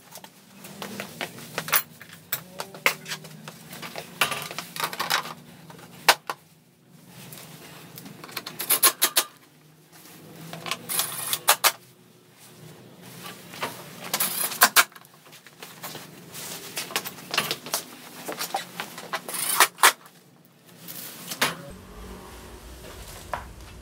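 Irregular clicks, clacks and short rattles of tools and metal and plastic parts being handled while a small step-through motorcycle's body panels and front basket are refitted.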